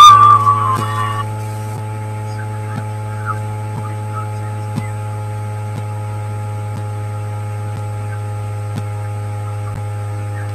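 Steady electrical mains hum with a stack of higher overtones, and faint scattered clicks. A wavering whistle-like tone fades out about a second in.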